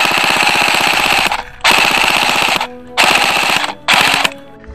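Airsoft electric rifle firing four full-auto bursts in quick succession, each a rapid rattle of shots over the whine of the gearbox. The last burst is the shortest.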